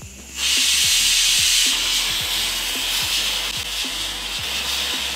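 Stovetop pressure cooker whistling: a loud, steady hiss of steam forced out under the weight, starting about half a second in and easing slightly after the first second. It is the cooker's first whistle, the sign that it has come up to pressure.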